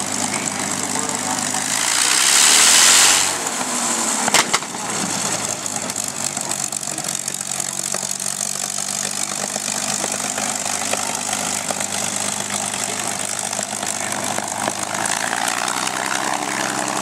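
Piston aircraft engine idling steadily, with a loud rush of noise about two to three seconds in and a sharp click about a second later.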